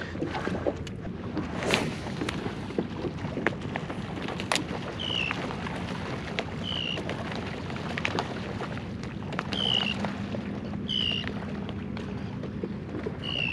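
Wind on the microphone and water lapping against a kayak hull, with scattered light clicks and knocks. A bird's short falling call comes five times, spaced out through the second half.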